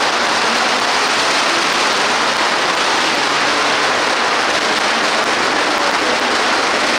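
Loud, steady din of a huge crowd, many voices shouting and cheering at once with no single voice standing out.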